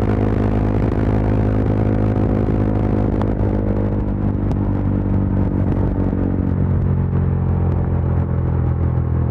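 Yezdi Adventure's single-cylinder engine and exhaust running steadily at highway speed, then easing off: the note drops after about three seconds and again at about six and a half seconds, with scattered short crackles from the exhaust as the throttle closes.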